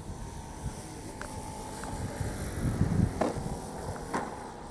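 Radio-controlled Hangar 9 P-47 Thunderbolt model airplane landing, its engine throttled back as it touches down and rolls out on the asphalt runway. A low rumble peaks about three seconds in, with a few light clicks after it.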